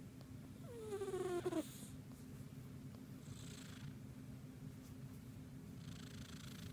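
A cat in deep sleep snoring with a steady low rumble, breathing in with a soft hiss twice. About a second in the cat gives one short call that falls in pitch.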